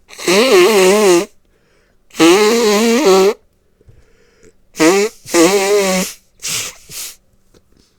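A man blowing his nose hard into a paper towel to clear a runny nose: two long blows with a buzzing, wavering pitch, then a quick run of four shorter ones.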